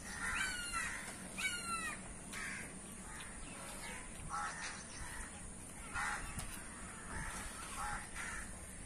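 Crows cawing: short calls repeating every second or so, the two loudest near the start.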